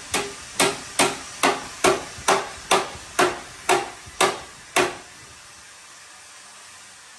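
A hammer striking the bent steel front frame rail of a Toyota Premio, about eleven sharp, ringing blows at roughly two a second that stop about five seconds in. The rail is being straightened cold, without heat, while a chain holds it under pull.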